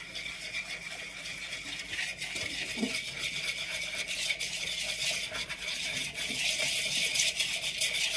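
A wire whisk scrapes and clicks rapidly against a plastic bowl, stirring melted butter and flour into a thick roux paste. The whisking runs on without pause and grows a little louder toward the end.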